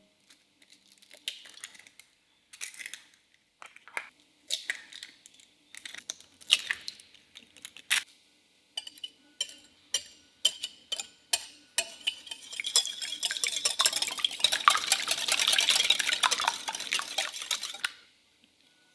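Three eggs cracked against a glass mixing bowl, a scattering of separate sharp taps and cracks, then a wire whisk beating the eggs in the glass bowl, a fast, steady rattle of clicks that starts about two-thirds of the way through, is the loudest part, and stops near the end.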